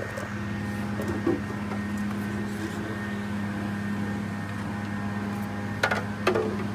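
A steady, even machine hum from unseen equipment. A few short knocks and clatters come about a second in and near the end.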